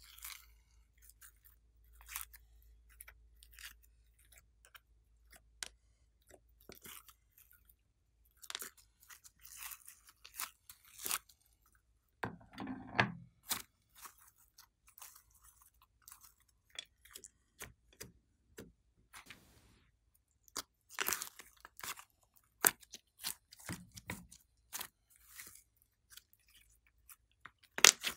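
Slime being squeezed, stretched and peeled by hand: irregular sticky clicks and crackles, with a fuller wet squelch about twelve seconds in and another near the end.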